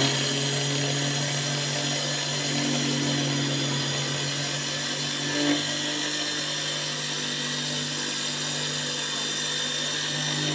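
Small electric grinder with a glass jar running steadily, grinding a cup of dry semolina into a fine, flour-like powder.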